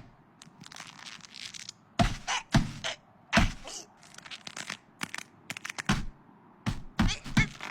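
Cartoon sound effects: a string of sharp thunks and knocks, irregularly spaced, with a few quicker clusters in the second half.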